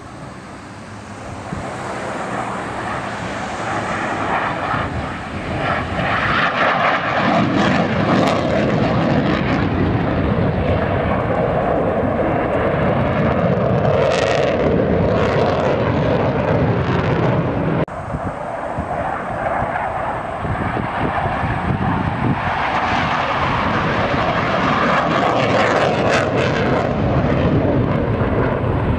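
Jet engine noise from a Blue Angels F/A-18 Super Hornet flying overhead. It swells over the first few seconds and then holds loud and steady, with a brief sharp dip about 18 seconds in.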